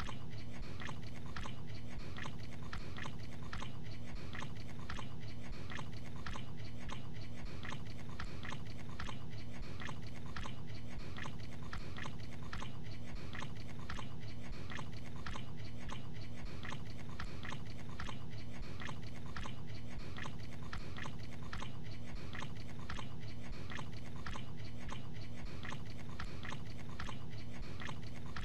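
A man chewing gabagool (sliced capicola) with his mouth closed, the chews coming in a steady, even rhythm over a faint low hum.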